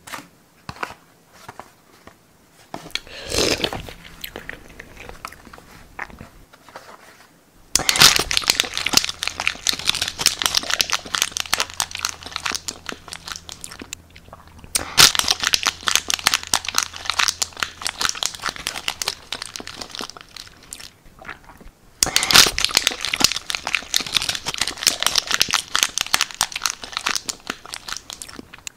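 Thin plastic food tray being crumpled and torn by hand, crinkling and crunching. A few soft rustles come first, then three long spells of dense crackle starting about 8, 15 and 22 seconds in.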